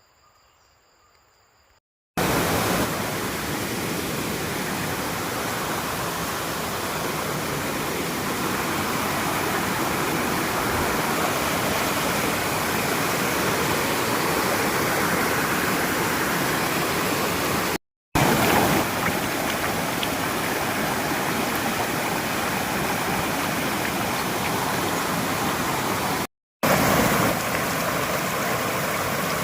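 Waterfall rushing: a steady wash of falling water that starts about two seconds in and breaks off for a moment twice later on.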